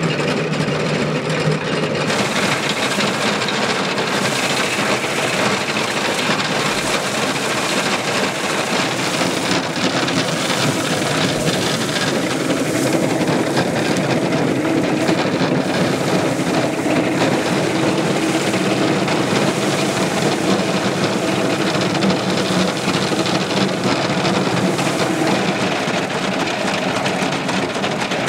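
Old-style threshing machinery, driven through a horse gear, running: a steady, dense mechanical clatter and rattle.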